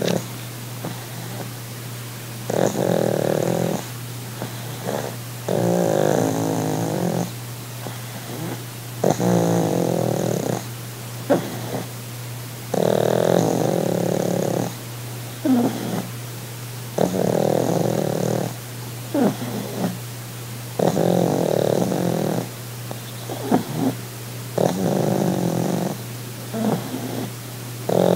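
A pug making a rattling, purr-like snore, one long rattle on each breath every three and a half to four seconds, with brief sharper snuffles in between. This is the noisy breathing typical of a flat-faced dog's narrow airway as it dozes.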